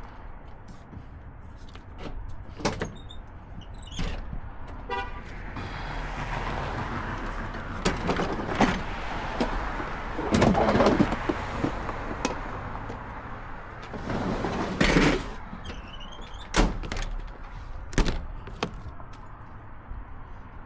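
A string of sharp knocks and clatter, with stretches of rushing, scraping noise as plumbing gear is handled and moved, and twice a short run of quick, even ticks.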